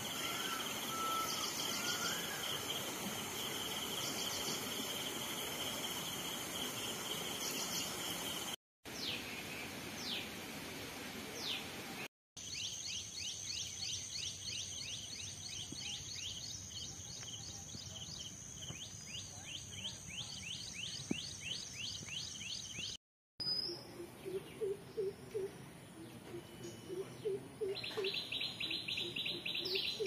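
Open-air ambience of birds chirping over a steady high insect drone, with a rush of flowing water in the first few seconds. Later come rapid runs of short chirps and some short, low repeated calls. The sound drops out briefly three times.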